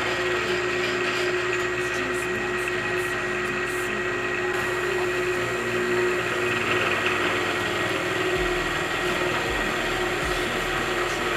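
Milling machine running a 2-inch carbide face mill in a facing pass across a block of AR400–500 steel: a steady mechanical whir and cutting noise with a constant hum.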